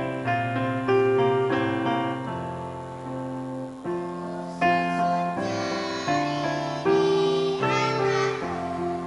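Piano-type keyboard playing a slow hymn accompaniment in sustained chords. About halfway through, children's choir voices come in over the keyboard.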